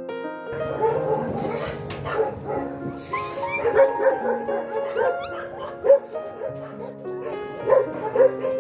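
A litter of very young puppies, just taken from their mother, squealing and whimpering in short, high, rising cries over soft background music.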